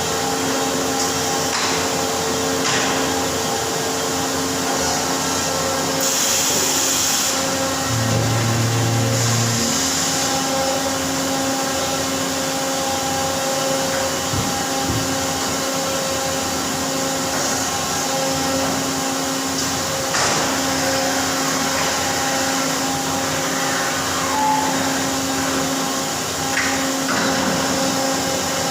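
CNC machine-shop machinery running steadily: a constant hiss with several steady hum tones, a few clicks, and a short, sharper hiss about six seconds in.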